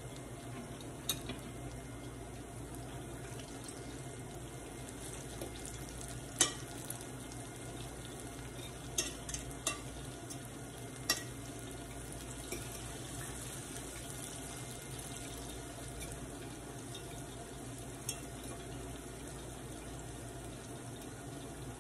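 Ripe plantain slices frying in a skillet of hot oil, a steady sizzle. A few sharp clicks of a utensil against the pan come as the slices are turned.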